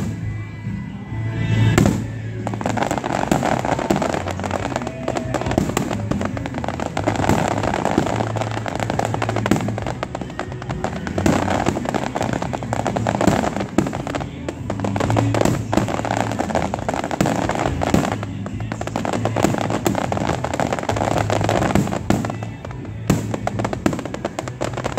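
Aerial fireworks shells bursting in a dense, continuous crackle of rapid small pops, with a heavier bang about two seconds in.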